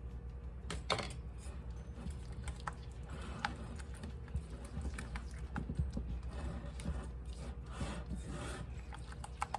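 A spoon stirring and scraping thick powdered-sugar icing against the sides of a bowl, with irregular clicks and scrapes, over a steady low hum.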